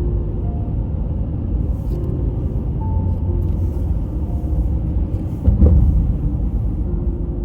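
A car driving on the road: a steady low rumble of road and engine noise, with sparse notes of quiet music over it and a louder bump about five and a half seconds in.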